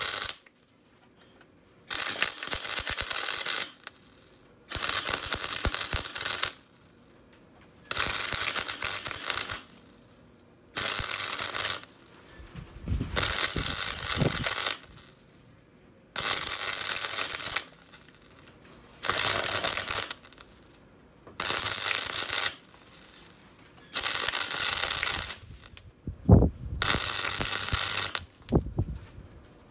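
Electric arc welding on car body sheet steel, laid in short runs: about ten bursts of one and a half to two seconds each, with brief pauses between, as the top seam of a repair plate is stitched in.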